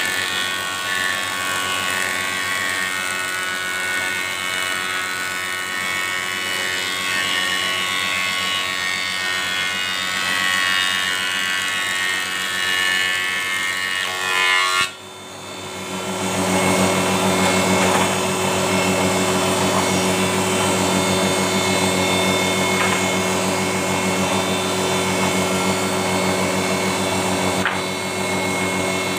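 Stationary thickness planer, modified to feed slowly for a smoother finish, running and planing a board, with a steady multi-tone whine. About halfway through the sound drops out briefly. It then comes back as a steady, somewhat louder hum with a deeper tone.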